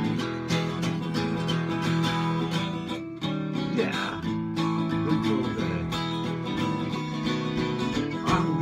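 Acoustic guitar strummed in a steady country rhythm, playing an instrumental break between verses.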